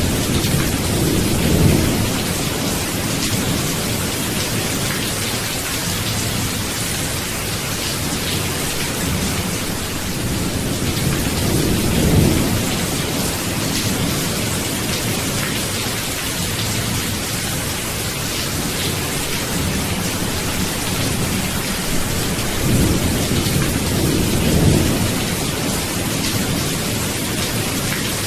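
Steady rain with low rolls of thunder swelling about a second in, around twelve seconds in, and again near the end.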